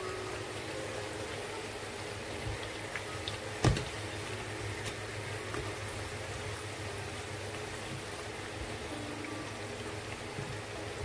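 Hot cooking oil sizzling steadily in a frying pan, with one sharp knock about four seconds in.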